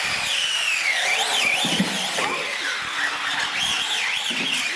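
Several electric radio-controlled UTVs racing on a concrete floor: high motor whines that rise and fall in pitch with the throttle, over a steady hiss of tyres and drivetrains.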